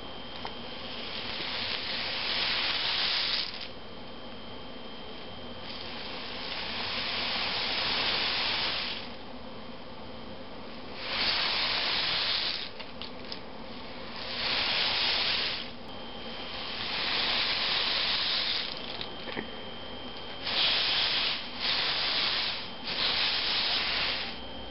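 Homemade rain stick tipped end over end, its filling pouring down past the sticks pushed through the tube. It makes a series of hissing rushes, each lasting one to three seconds, with short pauses as it is turned over.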